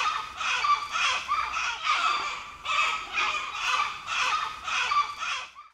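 A run of short animal calls, about three a second, cut off suddenly near the end.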